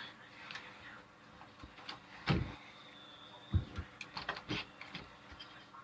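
Irregular clicks and knocks of doorknob hardware being fitted into a door, with a louder thump about two seconds in and another about three and a half seconds in.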